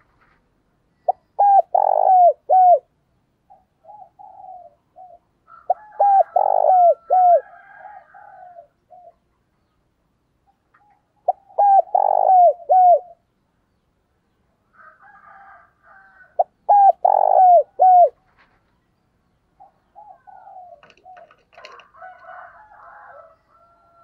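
Spotted dove cooing: four loud phrases, each a quick run of several short falling coos, about five seconds apart, with softer cooing between them. A fainter jumble of bird calls comes in near the end.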